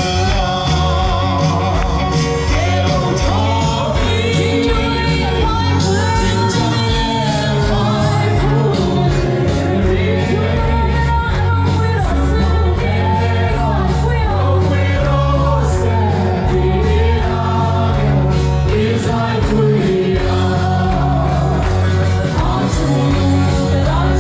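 Gospel song: voices singing over band accompaniment with a steady beat.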